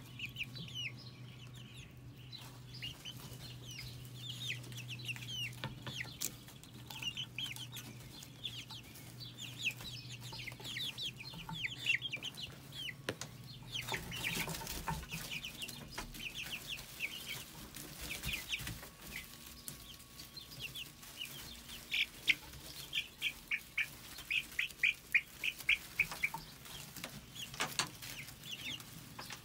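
A flock of young chickens peeping and cheeping, many short high calls in quick succession, busiest in the last third. A low steady hum sits under the first half, and there is a brief rustle about halfway through.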